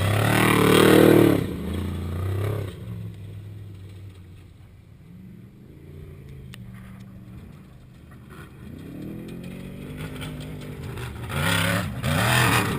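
Off-road race vehicle engines passing at speed. One passes loudly about a second in and fades away, distant engine sound carries on, and the next vehicle approaches and is loud near the end.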